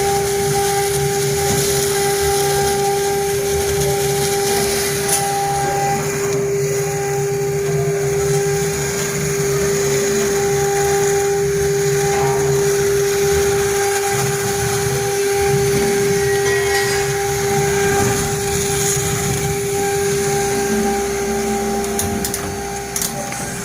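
Spindle of a 1325 stone CNC router running at a constant speed while its bit engraves stone. A steady, even whine sits over a gritty cutting noise.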